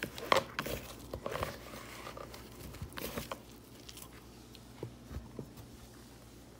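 Hands tossing floured green tomato slices in a bowl: soft, irregular rustling and light taps of the slices and bowl, busiest in the first three seconds, then sparse.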